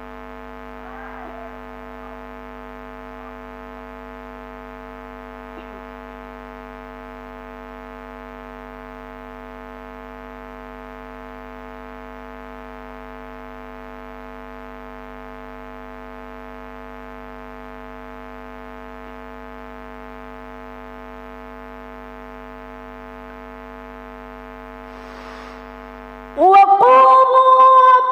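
Steady electrical mains hum of several unchanging tones. About two seconds before the end a woman starts melodic Quran recitation (tilawah) in a high voice through a microphone, much louder than the hum, and the hum stops.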